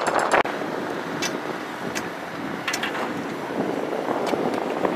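Pickaxes and shovels striking broken concrete rubble: a handful of sharp metallic clinks at irregular intervals, over steady wind noise on the microphone.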